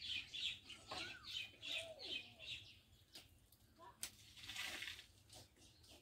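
Short rasping strokes, about two a second for the first couple of seconds, as poultry is cut on a boti blade, with birds chirping and calling in the background. There is a sharp click about four seconds in.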